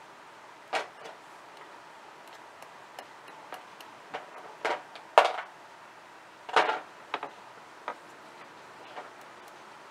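Metal tweezers tapping and clicking against a brass bezel and its metal base plate as small solder pieces are set in place: about a dozen light, sharp clicks at irregular intervals, the loudest near the start and around the middle.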